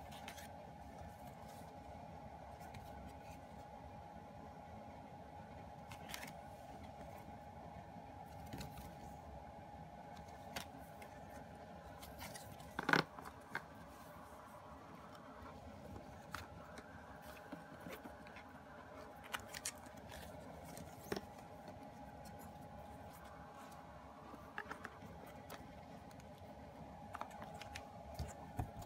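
Faint handling of CD album packaging: scattered clicks, taps and light scrapes of card and paper being picked up and slid around, with one sharper knock about halfway through. A faint steady tone hums underneath.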